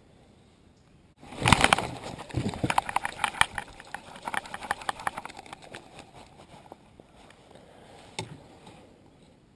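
Baitcasting reel cranked to wind the line in. It makes a rapid run of clicks that starts abruptly about a second in and thins out over several seconds, with one sharper click near the end.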